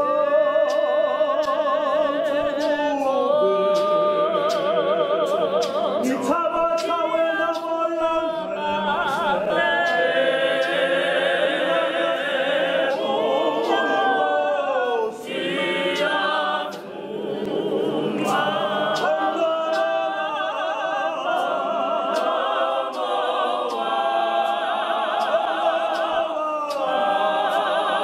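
Church choir singing a cappella in harmony, young women's voices holding long notes with vibrato. The singing dips briefly twice about halfway through.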